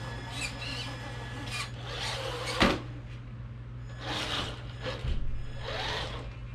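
Scraping and handling noises as a quartz slab is shifted and propped at a steeper angle, with one sharp knock about two and a half seconds in.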